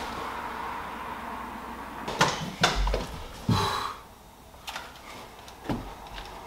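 A door being handled in a quiet house: three knocks and clicks close together a couple of seconds in, the last with a short creak, then a few fainter clicks.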